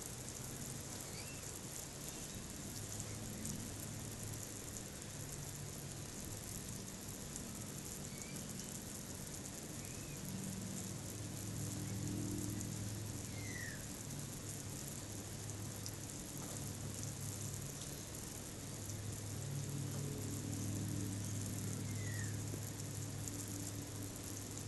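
Garden hose spraying water onto plants and soil: a steady hiss like rain. A low hum rises and falls underneath, and a bird gives short chirps twice, about halfway through and near the end.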